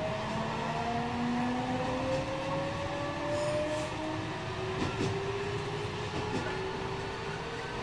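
JR West 207 series 1000-subseries electric train under way, heard from on board: the Toshiba GTO-thyristor VVVF inverter and traction motors give several tones that slowly rise in pitch as the train gathers speed, over the rumble of the wheels. A couple of short clicks come about five and six seconds in.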